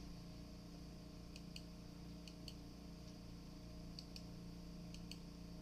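Faint light clicks, mostly in pairs, of small metal workholding pieces being handled during a milling setup, over a steady low electrical hum.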